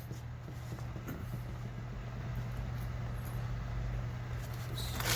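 Steady low hum with faint background noise, and a rustle of handled packaging near the end.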